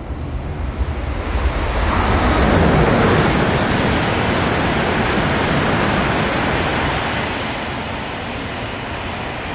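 E2 series Shinkansen passing through the station at speed without stopping: a loud rushing of air and wheels on rail that builds over the first two seconds, holds, then eases from about seven seconds in as the train draws away.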